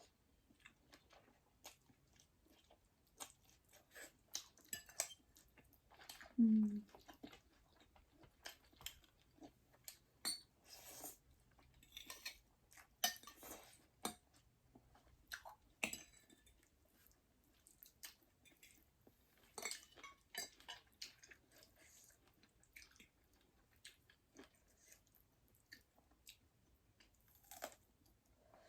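Close-miked eating in a mukbang: a person chewing, with many soft wet mouth clicks and smacks scattered throughout, and a brief low hum about six and a half seconds in.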